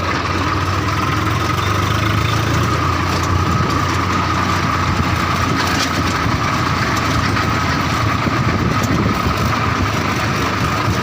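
Swaraj tractor's diesel engine idling steadily, with a constant high tone over the low engine hum.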